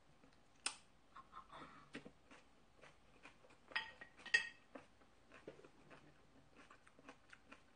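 Faint scattered clicks and clinks of eating utensils against dishes, with two slightly louder ringing clinks a little after the middle.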